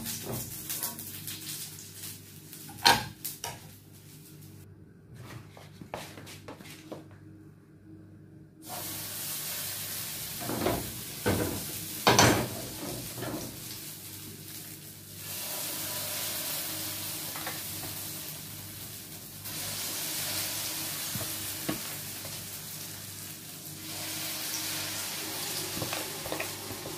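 Potato pancakes frying in hot oil in a pan: a steady sizzle that steps up louder three times in the second half as more batter goes into the pan. A metal skimmer clinks and scrapes against the pan, loudest about three and twelve seconds in.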